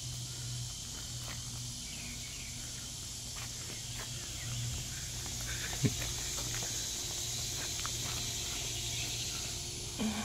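Steady high-pitched insect buzzing over a constant low hum, with a single sharp tap about six seconds in.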